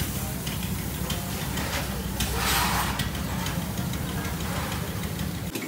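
Fiat 680 tractor's diesel engine idling with a steady low drone and light ticking, with a brief hiss about two and a half seconds in.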